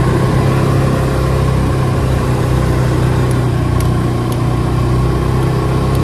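Snowmobile engine running at a steady speed while the sled travels along a snowy trail, an even drone that holds one pitch throughout.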